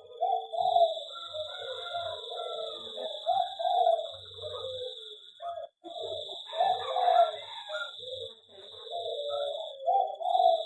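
Zebra doves (perkutut) cooing, several calls overlapping in a continuous stream of phrases. A steady high-pitched whine runs behind them, dropping out briefly a few times.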